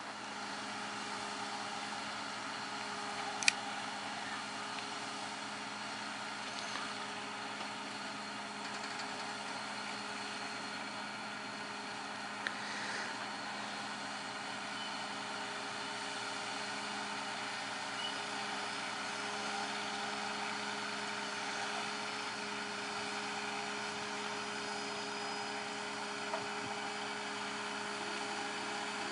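Steady drone of heavy railway engineering plant's diesel engines idling. A single sharp click comes about three and a half seconds in.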